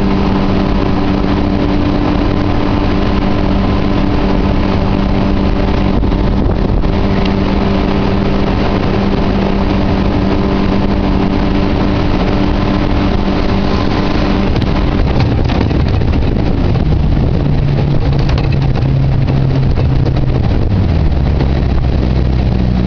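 Yamaha 60/40 jet outboard on a jet boat running at a steady cruise, then throttling back about two-thirds of the way through, its pitch dropping in two steps.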